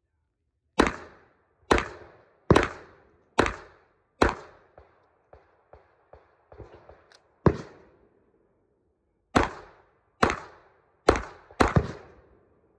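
Handgun shots from a Walther PDP pistol, each with a short ringing decay outdoors. About five shots come evenly spaced under a second apart, then fainter ticks, a single shot, and after a pause four more shots, the last two close together.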